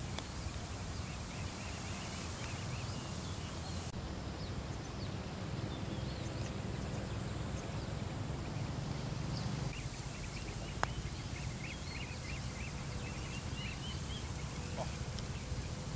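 Many small birds chirping over a steady low outdoor rumble, with one sharp click about eleven seconds in.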